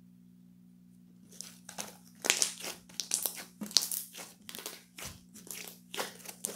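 Rapid, irregular crinkling and crumpling, as of something being crushed or handled in the hands, starting about a second in, over a steady low hum.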